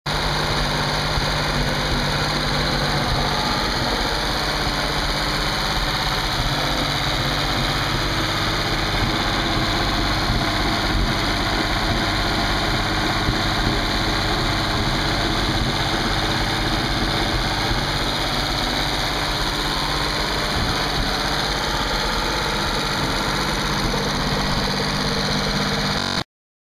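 Freshly rebuilt 1950 Chris-Craft Riviera inboard engine, a six-cylinder flathead marine engine, running steadily at an even speed on its first test run. The sound cuts off suddenly near the end.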